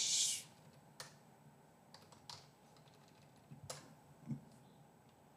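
Computer keyboard keys pressed in a few scattered, widely spaced keystrokes.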